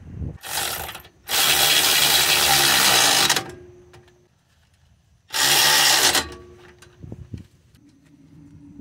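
Cordless impact wrench running in three bursts, a short one, one of about two seconds and one of about a second, tightening the 17 mm brake caliper bolts. A few light clicks follow near the end.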